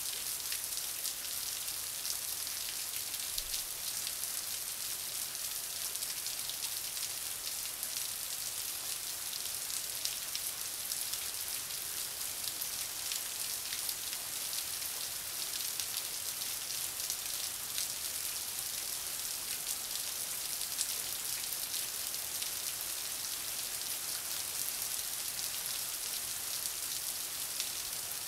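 Heavy thunderstorm rain falling steadily on pavement and parked cars: a dense, even hiss full of small drop ticks.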